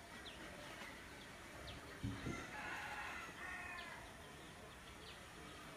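A soft thump about two seconds in, then a chicken calling faintly in two drawn-out parts for over a second. Small birds give a few short chirps now and then.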